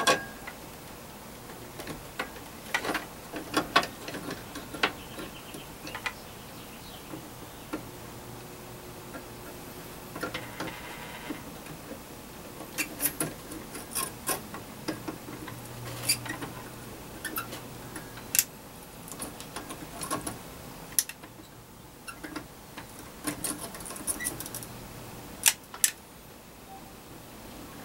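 Light metallic clicks and taps, irregular and scattered, from pliers and antenna hardware being handled while a wire is soldered onto an SO-239 connector with a soldering gun. A faint low hum comes and goes a few times.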